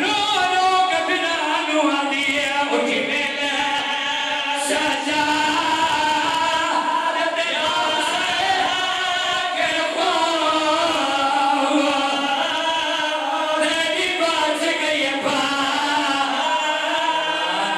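A Shia mourning congregation of men wailing and weeping aloud together, many voices crying at once in long, wavering cries.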